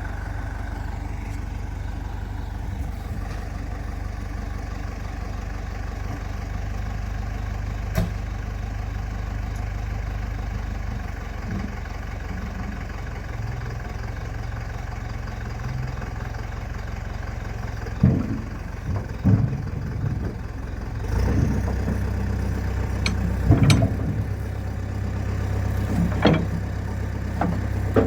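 Engine running steadily at low speed with a deep, even drone, with a single sharp click about eight seconds in and several knocks and clanks in the last ten seconds.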